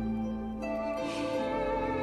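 Soft, tender background score of long held notes, moving to a new chord about half a second in.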